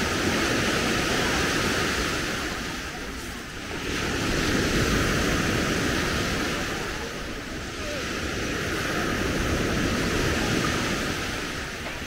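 Small sea waves breaking and washing up the sand, the rush swelling and easing three times.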